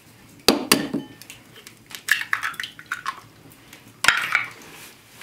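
Eggs knocking against pottery as they are cracked over a ceramic mixing bowl and picked from an earthenware dish. There are two sharp knocks about half a second in, light clicks and shell rustling in the middle, and another sharp knock about four seconds in.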